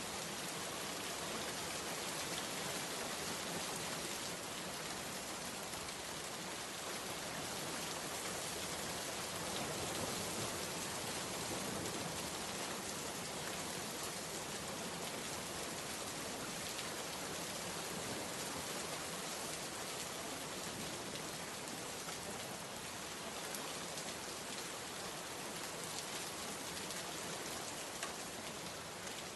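Steady rain falling, an even hiss with scattered droplet ticks.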